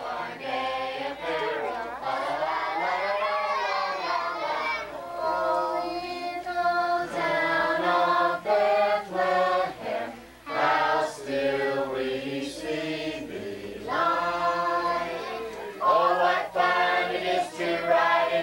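A group of children singing a Christmas carol together, holding long notes.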